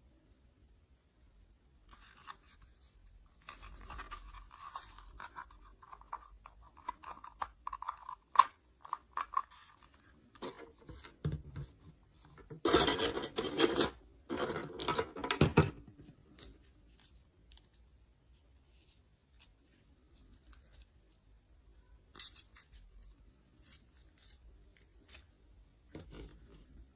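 Toy packaging and plastic toy pieces being handled: scattered light clicks and scratchy rustling, with two loud bursts of crinkling or tearing about halfway through.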